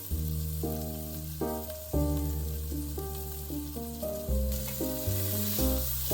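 Food sizzling as it fries, growing louder about two-thirds of the way in, under background music of melodic notes over held bass notes.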